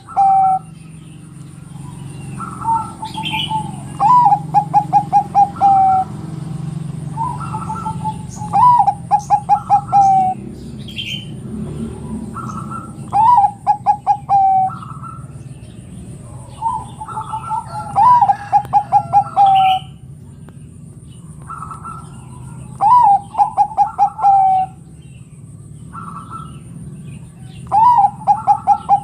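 Bangkok-type perkutut (zebra dove) singing its cooing song again and again, about every four to five seconds. Each phrase is a short higher note, a rising coo, then a quick run of rolling coos.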